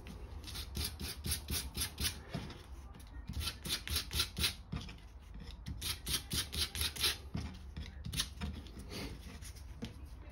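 Sandpaper rubbed in quick back-and-forth strokes over a light grey hot-tub repair patch, a scratchy scuffing in runs of several strokes with short pauses. It is lightly roughening the shiny surface to give the two-part adhesive a key.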